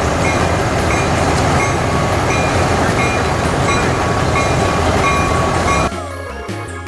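Train running: a loud rumbling noise with a short repeating tone about one and a half times a second, which cuts off suddenly near the end.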